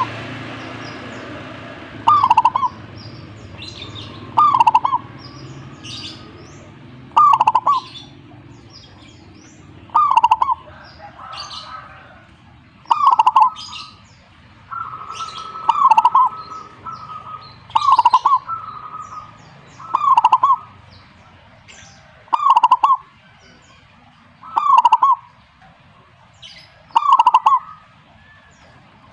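Zebra dove (perkutut) cooing, one short phrase repeated about every two and a half seconds, with faint high chirps in between.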